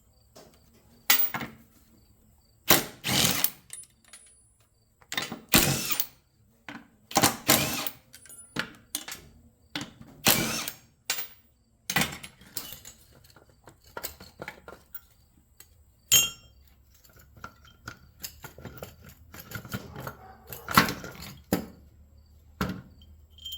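A handheld power driver running in short, repeated bursts as it backs bolts and screws out of a motor starter's copper contact pieces, with light metal clatter between the bursts.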